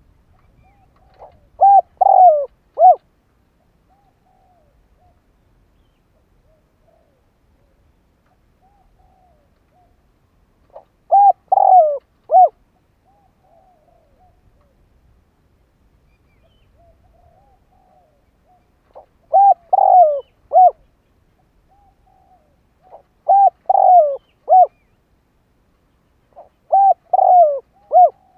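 Spotted dove cooing: five short phrases of a few coo notes each, repeated every four to eight seconds. The first comes about two seconds in, and the last three come close together near the end. Much fainter coos are heard between the phrases.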